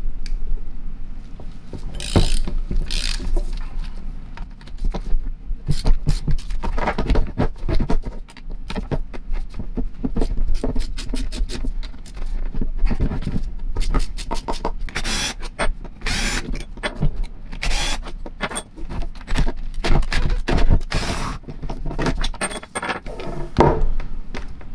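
Long-handled ratchet with a 6 mm hex bit clicking as it backs out the tight rear-handle screws of an Ingersoll-Rand 1-inch air impact wrench, with knocks and scrapes of the cast metal tool shifting on the wooden bench. The clicks and knocks come in irregular runs.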